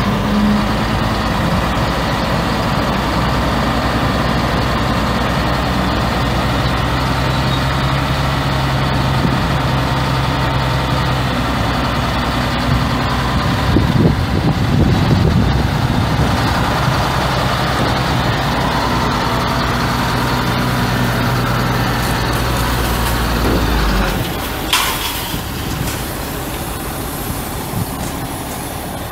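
Caterpillar 3126 inline-six turbo diesel of a 2003 Sterling L7500 dump truck idling steadily. About 24 s in its low hum stops and a brief hiss follows.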